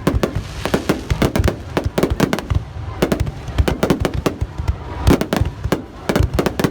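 Fireworks display: a rapid, irregular barrage of sharp bangs and cracks from bursting shells, several every second, over a continuous low rumble.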